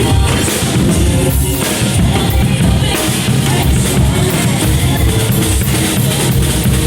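Drum kit played with a steady beat along with music, with the bass drum hits prominent in the low end.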